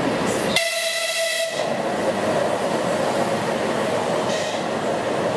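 Ivolga 2.0 (EG2Tv) electric multiple unit passing at speed. It sounds a short horn blast about half a second in, lasting about a second, over the steady running noise of the carriages going by.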